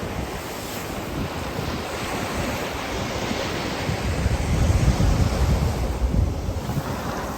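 Ocean surf washing onto the beach, a steady rushing noise, with wind buffeting the microphone in gusts.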